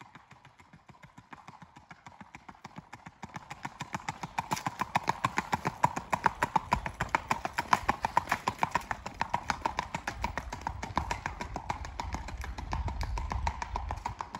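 Hoofbeats of a gaited horse on a paved path: a quick, even clip-clop that grows louder as the horse comes close, then eases off near the end.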